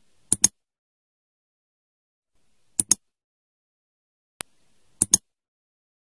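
Mouse-click sound effect for an on-screen 'Like' button: three sharp double clicks, the first just after the start, one in the middle and one near the end, with a single click shortly before the last pair.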